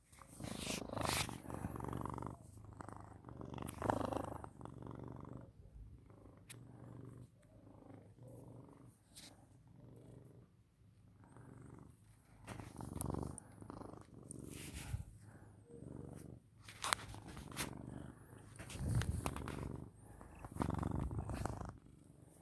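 Domestic cat purring close to the microphone, swelling and fading every few seconds with its breathing, with a few faint rustles.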